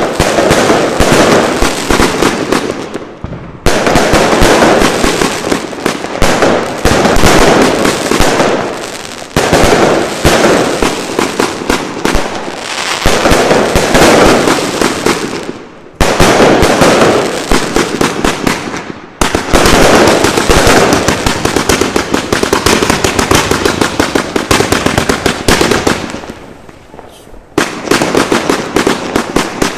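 Fireworks for All 'The Gladiator' double compound cake firing loud, rapid volleys of shots that burst overhead. The firing comes in several stretches, each starting abruptly, with a brief lull about 26 seconds in before it starts again.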